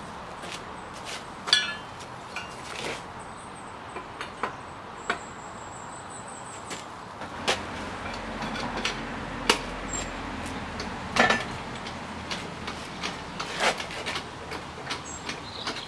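Scattered metal clinks and knocks as a post-mounted crane is readied by hand, its steel handle and fittings clanking against it, with footsteps on paving. A low rumble rises in the background through the middle.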